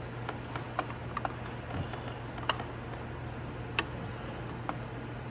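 Scattered light clicks and taps from a motorcycle's front sprocket cover being wiggled back and forth to free it, the cover hung up behind the starter gear. A steady low hum runs underneath.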